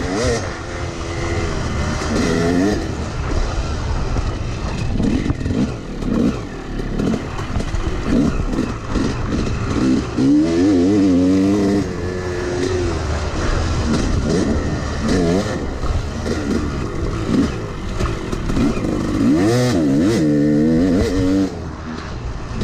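Yamaha YZ250X two-stroke dirt bike engine heard from on board while riding, its pitch climbing and dropping again and again as the throttle is opened and shut through the gears.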